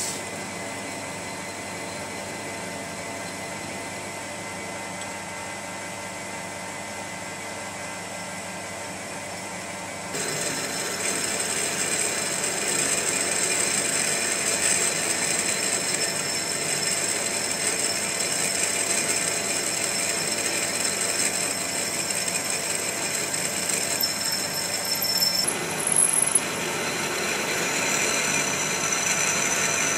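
Metal lathe running with a twist drill in the tailstock chuck drilling into a spinning gear blank, opening out the bore with successively larger drills. About ten seconds in the drill starts cutting and the sound gets louder, with a steady high whine over the machine's hum, and there are a few brief louder knocks near the end.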